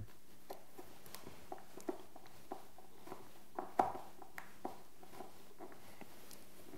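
Small irregular metallic clicks and taps of a screwdriver working at a metal door hinge, one a little louder near the middle, over faint room hiss.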